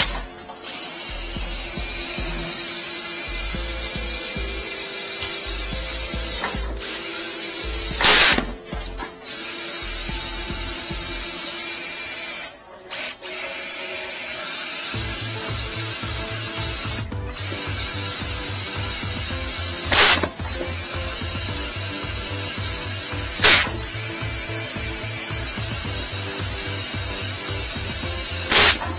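DeWalt cordless drill spinning a flexible drain-cleaning shaft down a floor drain to scour out hardened epoxy blocking it. The drill runs steadily with a whine, stopping and restarting briefly several times, with a few sharp knocks along the way.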